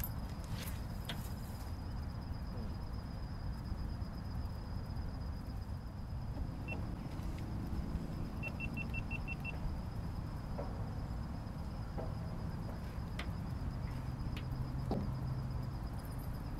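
Steady low rumble with a faint high whine, as of a small motor running. One short electronic beep comes a little before the middle, then a quick string of about six short beeps.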